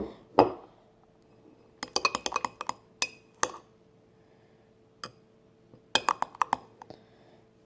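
A utensil clinking against a glass container while stirring a dish-soap-and-salt slime mixture. The taps come in short clusters of quick clicks with quiet pauses between them.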